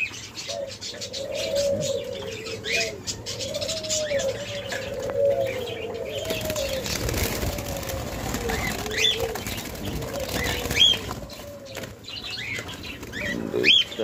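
A cage full of doves cooing over and over in low, gliding notes, with wings flapping against the cage now and then, and a few short rising high-pitched calls in the second half.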